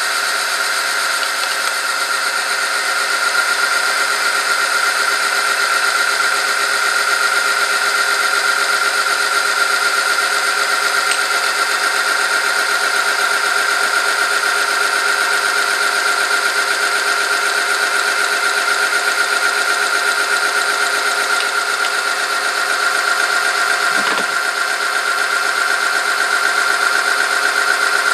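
Oil-film test machine running under load: its electric motor turns a steel roller through hot 5W-30 oil against a weighted steel sample, which is being gouged as the oil film is tested. It gives a steady, loud high whine over a rough mechanical running noise, with a brief low knock near the end.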